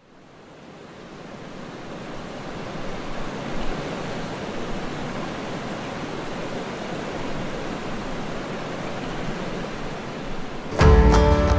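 A steady rushing noise fades in from silence over the first couple of seconds and then holds. Near the end, plucked acoustic guitar music comes in.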